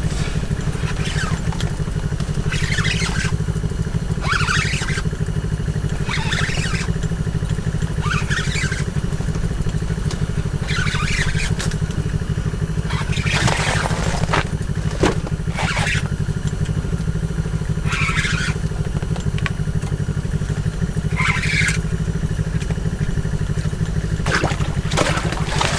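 A steady low engine-like hum runs throughout, with short scraping or rustling sounds every second or two.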